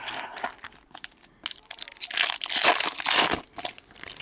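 Wrapper of a 2015-16 Platinum hockey card pack crinkling and tearing as it is opened by hand, in irregular crackly bursts that are loudest in the middle.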